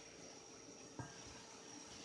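Near silence: faint room tone with a steady high whine and one soft knock about a second in.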